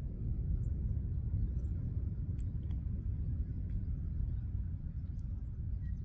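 Low, uneven rumble of wind buffeting the microphone, steady throughout.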